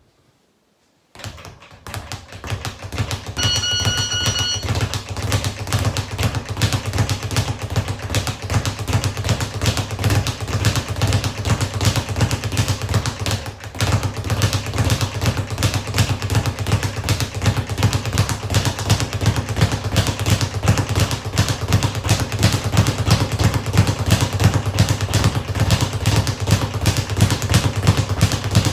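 Speed bag being punched in a fast, continuous rhythm, the bag rattling against the rebound platform; it starts about a second in and falters briefly near the middle. A short beep sounds about three seconds in.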